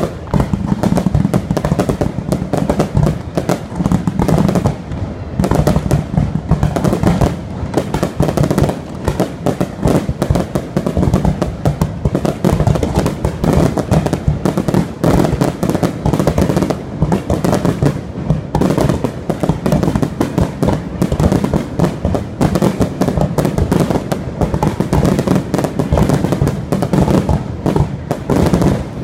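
Fireworks display: a dense, unbroken run of bangs and crackles from bursting shells and rising rockets.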